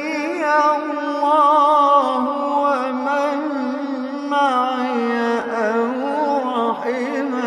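A man's voice reciting the Quran in a melodic tajweed style, holding long drawn-out notes with ornamented turns of pitch.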